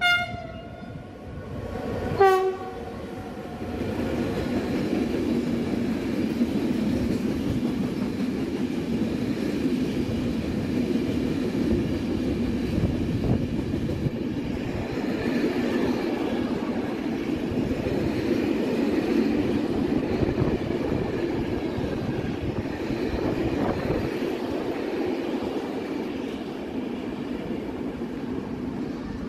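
Freight train hauled by an E.494 electric locomotive: two short horn toots, one at the start and one about two seconds in, then the steady running noise and clatter of empty flat wagons rolling past.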